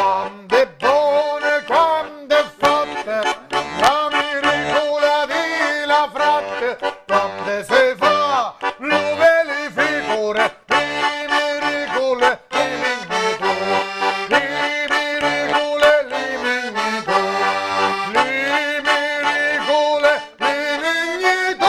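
Diatonic button accordion (organetto) playing a folk song in three-four waltz time, with repeated bass notes under the melody, while the player sings along.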